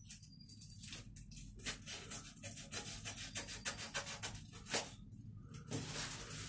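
Garden snips cutting and scraping through packing tape and a cardboard tube, a string of short rasps and crinkles as the card and tape are cut and pulled open.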